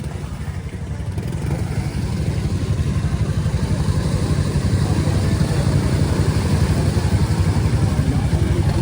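Honda ATV engine running under throttle with a fast, even pulsing, growing louder over the first few seconds and then holding steady.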